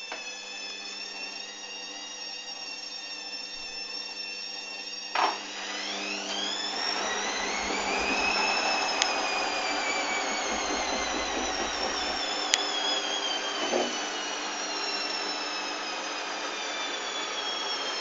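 Hoover Dynamic washing machine on its final spin with a badly unbalanced load: a steady motor and drum whine, a thump about five seconds in, then the whine climbs in pitch for a few seconds and slowly falls again. There is another knock about fourteen seconds in.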